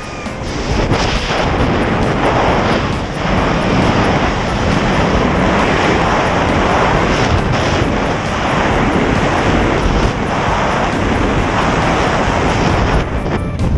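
Freefall wind rushing over a handheld action camera's microphone during a tandem skydive: a loud, steady rush of wind noise that thins near the end.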